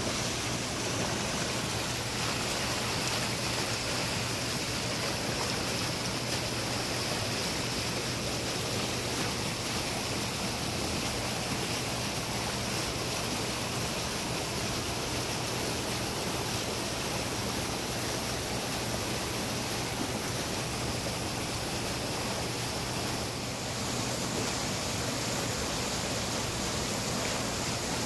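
Waterfall cascading over rock ledges into a pool: a steady, unbroken rush of whitewater.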